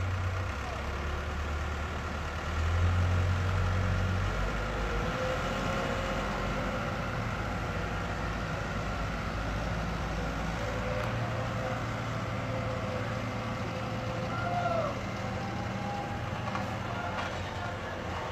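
Diesel engines of road-works machines, a small road roller and a wheel loader, running and moving at low speed. A steady low drone shifts pitch several times and is briefly louder about three seconds in.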